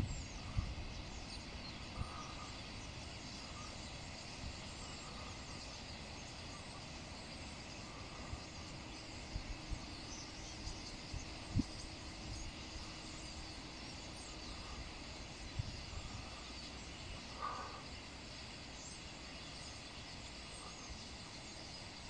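Faint, steady chatter of a large flock of starlings, with scattered short calls and a few soft low thumps.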